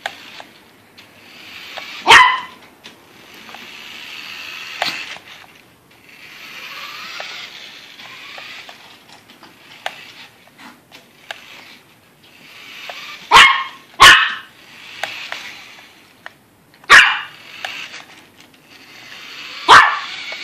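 Yorkshire terrier barking at a toy: five sharp single barks spread out, two of them close together about two-thirds of the way in. Between the barks, a softer whirring hiss from the Yoshi remote-control toy car's electric motor as it drives.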